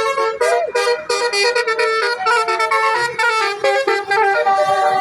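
Basuri telolet musical horn playing a quick tune of short, changing notes.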